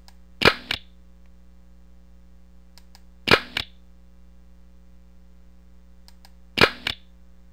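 Computer camera-shutter sound effect, three times about three seconds apart, each a sharp click followed by a smaller second click; each one marks a screenshot being captured.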